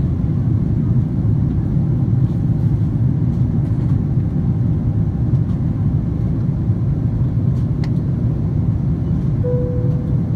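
Steady low rumble of a Boeing 777-200ER's jet engines and airflow, heard from inside the passenger cabin. A brief steady tone sounds near the end.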